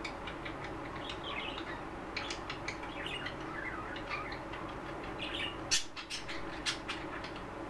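Pet budgerigars chattering in a cage: a steady stream of short, wavering chirps and warbles with scattered small clicks. Near the end come two louder sharp knocks about a second apart.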